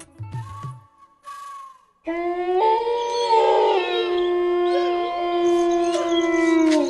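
Spooky horror-style sound effect: a loud drone of several held tones starts abruptly about two seconds in, with wavering howl-like glides over it, and bends down in pitch at the very end. Before it come a few short bits of voice and a whistled note, then a brief near-silence.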